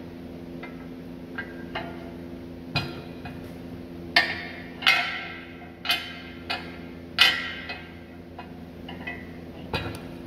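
Sharp metal clanks and knocks, several with a short ring after them, as an electric winch is set down and shifted into place on a steel receiver-hitch mount plate. The loudest clanks fall between about four and seven and a half seconds in, over a steady low hum.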